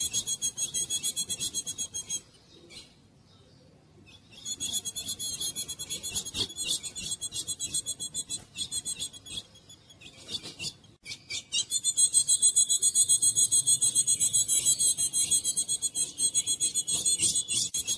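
Female ultramarine grosbeak (azulão) repeating a fast run of scratchy, high-pitched notes. It breaks off about two seconds in and again about ten seconds in, then resumes.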